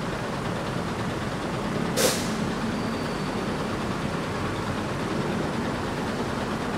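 Daewoo BH115 bus's diesel engine idling steadily at the rear of the bus. About two seconds in there is one short, sharp hiss of released air.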